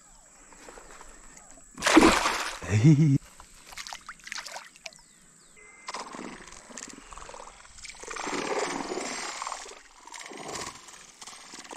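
Water splashing as a hooked traíra (wolf fish) thrashes at the surface, with a loud splash about two seconds in and a longer spell of splashing near the end.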